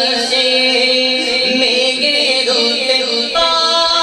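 A man singing a naat (devotional Urdu/Punjabi song in praise of the Prophet) into a microphone, in long held notes with wavering melodic ornaments; a new phrase starts near the end.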